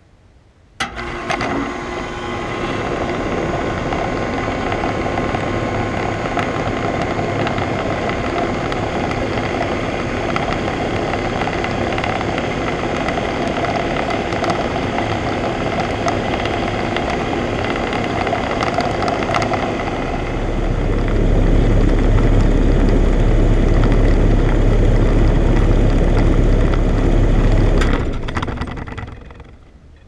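A 2001 York 2.5-ton central air conditioner condenser unit, with its compressor and condenser fan, starting up with a sudden click about a second in, then running with a steady hum and several steady tones. About twenty seconds in the low hum grows louder, and near the end the unit shuts down, its sound dying away over about two seconds as the fan coasts to a stop.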